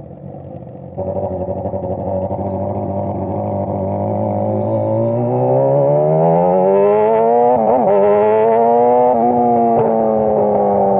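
600cc inline-four sport bike engine accelerating hard, its note climbing steadily in pitch for several seconds, then easing slowly back down near the end.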